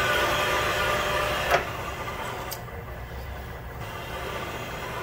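Valve seat machine spindle turning a counterbore cutter in a cylinder head's valve seat pocket, a steady machine hum with several held tones. About one and a half seconds in there is a sharp click, and the sound drops to a quieter hum.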